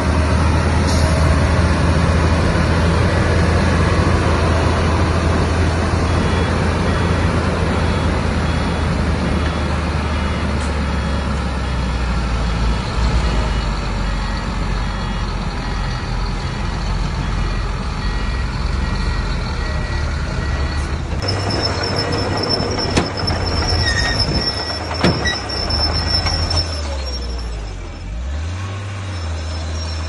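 Heavy diesel earthmoving machinery running under load, a steady low engine drone. About two-thirds of the way in a high steady whine joins it, a sharp metallic knock follows a few seconds later, and near the end the engine note drops and comes back up.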